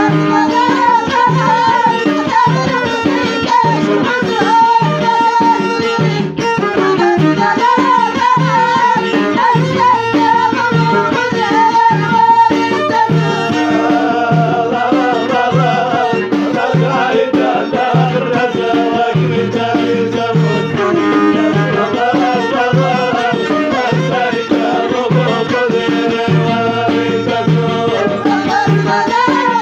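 Moroccan Middle Atlas folk music played live: a steady low drum beat under a wavering melody line, with some singing.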